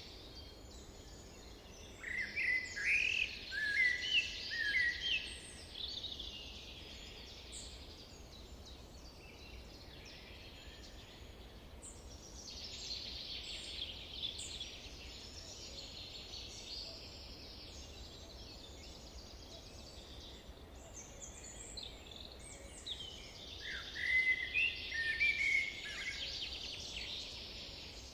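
Forest birds singing: a steady chorus of distant song, with a louder, nearer bird breaking in twice, a couple of seconds in and again near the end, with runs of quick rising and falling notes.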